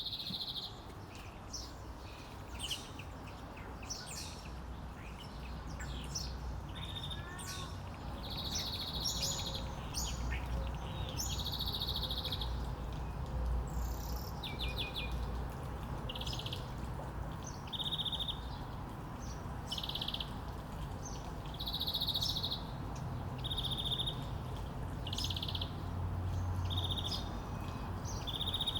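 Wild birds singing and calling: many short chirps and quick trilled phrases repeated every second or two, over a steady low background rumble.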